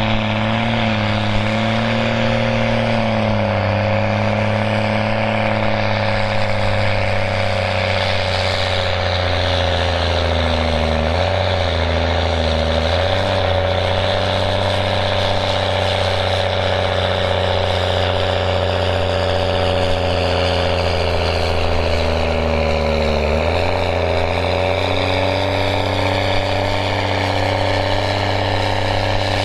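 Case IH Puma tractor's six-cylinder diesel engine running hard under heavy load as it pulls a weight-transfer sled, its note dipping and shifting a few times as the load builds.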